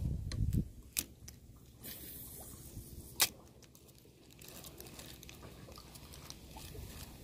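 Handling noise from a spinning rod and reel and the camera in a kayak: a low rumble at the start, then a few sharp clicks, the loudest about one and three seconds in.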